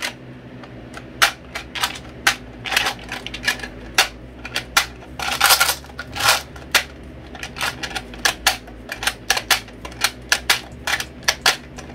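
Caldwell rotary 22LR magazine charger being cranked by hand: a run of sharp, irregular plastic clicks, a few each second, from the handle, ratchet and clutch-override mechanism as it feeds, or skips feeding, .22 LR cartridges into a 25-round 10/22 magazine. A brief rattle comes about halfway through.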